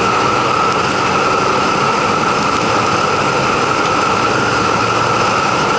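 Row of gas burners firing under a mesh-drum chili roaster while it roasts Hatch chiles: a loud, steady rushing hiss with a steady high tone running through it.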